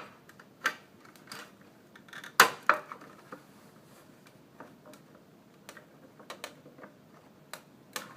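Scattered clicks and knocks from handling the cover of a basic white-box door chime while trying to pry it off. The loudest is a sharp double knock about two and a half seconds in.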